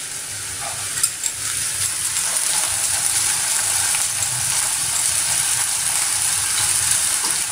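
Chopped onions and green chillies sizzling in oil in a kadhai on high flame, stirred with a wooden spatula. There is a steady hiss, with a couple of light knocks from the spatula about a second in.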